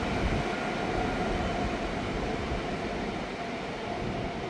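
A train running through the station: a steady rumble with a faint whine, easing off slightly toward the end.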